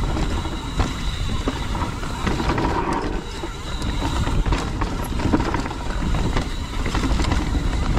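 Mountain bike rattling down a rocky trail: tyres rolling over rock and dirt, with frequent knocks and clatter from the bike over a heavy low rumble.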